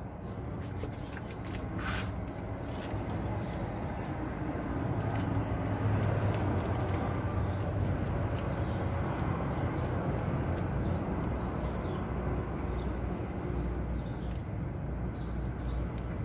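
A steady low rumble like a running motor, with a few sharp clicks, one about two seconds in.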